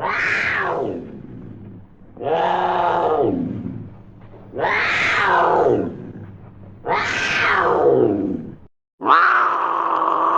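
Cougar calls from an old sound-effects recording: four drawn-out yowls about two seconds apart, each rising briefly and then falling in pitch. Near the end, after a short gap of silence, a different, steadier cougar call begins.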